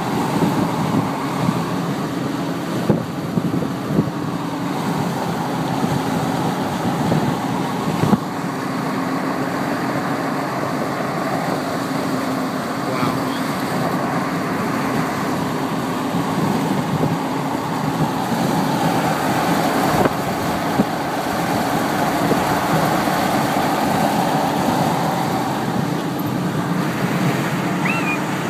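Steady road and wind noise heard from inside a car driving at highway speed: tyres on pavement and air rushing past, with a few small knocks.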